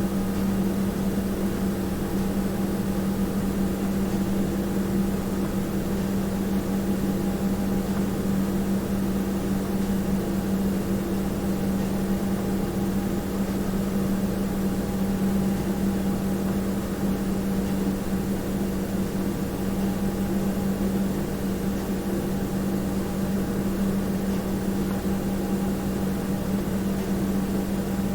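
Room tone: a steady, unchanging hum with a strong low drone and fainter higher tones over a soft hiss.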